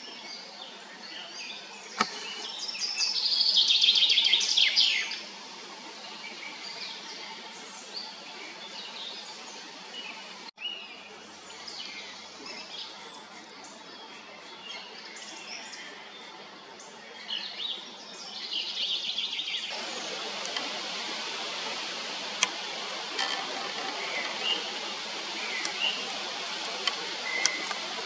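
Wild songbirds singing and calling over a steady background hiss. One bird gives a loud song of rapid repeated notes a couple of seconds in, another sings shortly before two-thirds through, and scattered chirps and short calls follow. The background hiss gets louder abruptly about two-thirds through.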